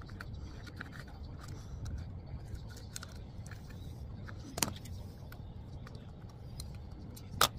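Hard plastic car trim piece being handled and pried with a plastic trim tool: scattered light clicks and scrapes of plastic, a sharp knock about four and a half seconds in and a louder one near the end, over a steady low hum.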